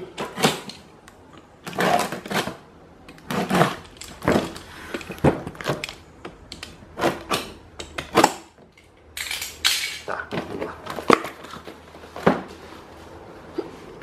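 A large cardboard appliance box being handled: irregular scrapes, rubs and knocks as it is turned over and set down on a tiled floor.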